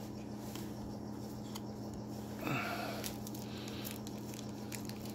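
Trading cards being handled and flipped through by hand: faint slides and flicks of card stock over a steady low hum, with a brief vocal murmur about halfway through.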